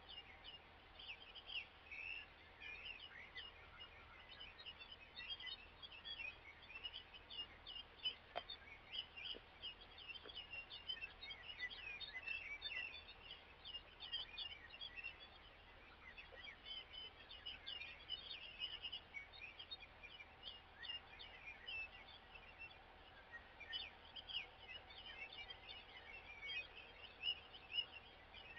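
Early-morning spring chorus of many songbirds: a dense, unbroken run of overlapping chirps, trills and short song phrases, faint, with a low steady hum underneath.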